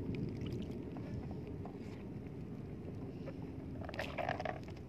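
Steady low rumble of wind and water at the seashore, with a few faint knocks about four seconds in.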